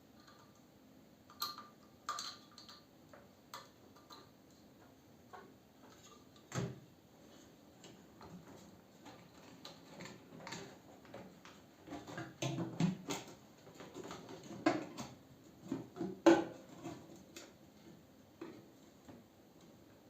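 Scattered light clicks and knocks of small metal parts and tools being handled during a microwave oven repair, sparse at first and busier and louder about two-thirds of the way through.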